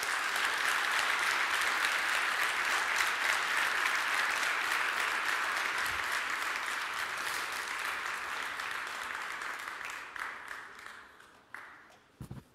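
Audience applauding, steady for about ten seconds, then dying away near the end.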